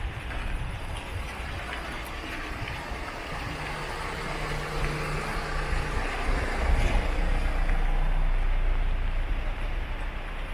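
A motor vehicle's engine running close by, a low steady hum that grows louder past the middle and eases near the end, over the steady hiss of rain.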